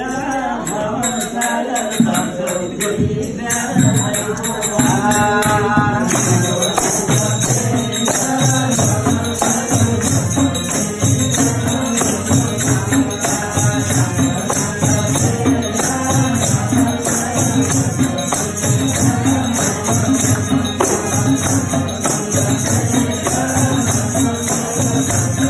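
Live devotional folk music: a harmonium and a madal hand drum keep a steady, lively beat under bright jingling percussion, with voices chanting or singing along.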